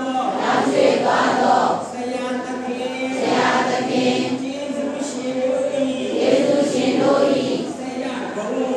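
Buddhist congregation chanting a recitation in unison, many voices on a few held pitches in phrases of a second or two.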